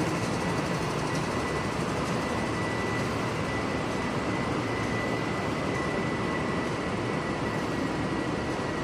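Steady rushing hum of an underground metro station platform, with a faint, thin, high whine held at one pitch.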